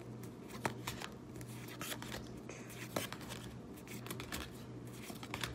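Magic: The Gathering trading cards being flipped through one at a time in the hands: faint, irregular clicks and slides of card stock.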